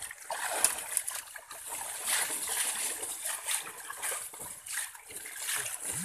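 Muddy water splashing and sloshing in a fishing net as it is gathered up, with small wet slaps and crackles from the mud and small fish inside.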